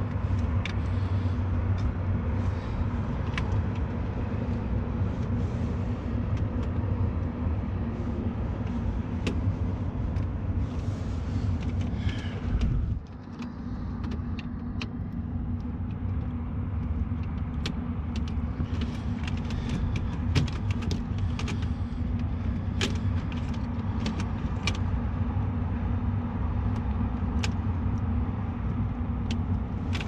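A steady low mechanical drone, with scattered light clicks and rustles from gloved hands handling wires and plug-in connectors on an HVAC control board. The drone dips briefly about thirteen seconds in, then comes back.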